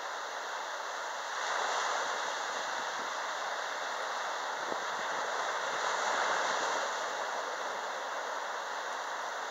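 Small sea waves breaking and washing up a sandy beach: a steady surf hiss that swells as a wave breaks about one and a half seconds in and again around six seconds in.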